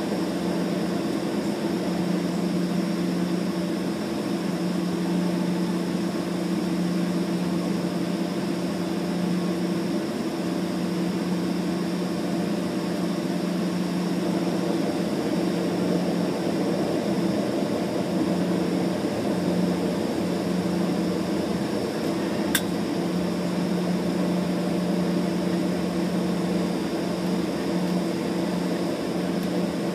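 Steady drone of a regional airliner's engines and cabin air system heard inside the cabin while it taxis, with a faint high whine over it. One short click about 22 seconds in.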